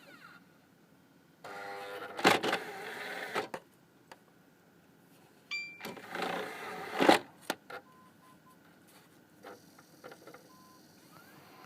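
Xbox 360 Slim's DVD drive running its eject cycle twice: a motor whir with sharp clunks each time, and a short electronic beep just before the second. The owner suspects the noise on eject is not normal.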